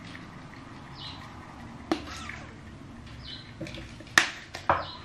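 A bird chirps briefly about every second and a half. Three sharp knocks come about two seconds in and twice near the end, the second of them the loudest sound.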